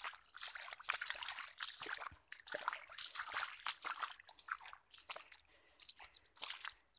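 Wet squelching and crackling of soaked mud underfoot, in irregular bursts with short breaks.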